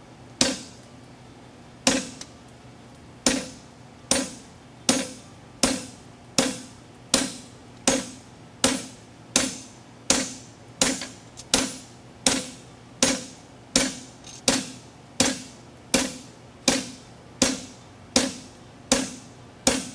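Hammer blows on a handled fuller set on a steel horseshoe over the anvil, marking out the nail crease in a hind draft shoe. About 25 ringing metal strikes: the first few are spaced out, then they keep an even pace of a little under one and a half a second.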